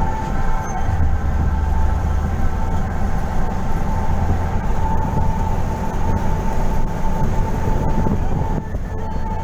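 Steady low rumble of a moving road vehicle, with a steady higher tone running over it.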